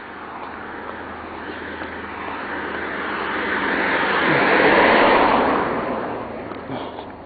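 A vehicle passing by: tyre and engine noise builds slowly, peaks about five seconds in and fades away.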